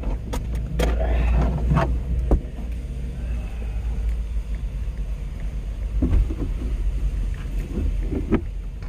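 Handling noise inside a pickup cab: several sharp knocks and clatters in the first couple of seconds, over a steady low rumble, as a plastic steering-wheel tray is picked up and moved and the passenger door is opened.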